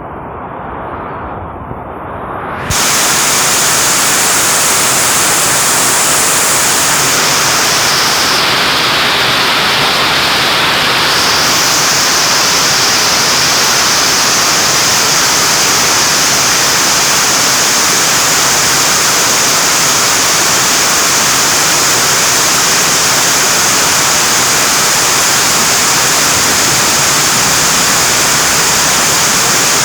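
Heavy rain: a steady, dense hiss of downpour. It is muffled at first, then turns sharply louder and brighter about three seconds in.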